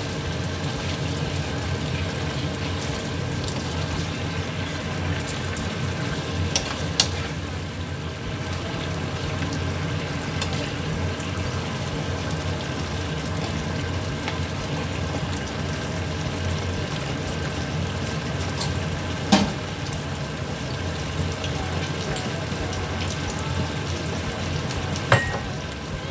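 Chicken, onion and bell pepper sizzling steadily in a pan of sauce on the stove, with a few sharp clicks of a spoon against the pan.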